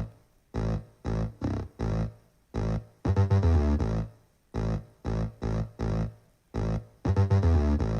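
A song played through a smart speaker: short stabs of synth chords over heavy bass, with brief silences between them.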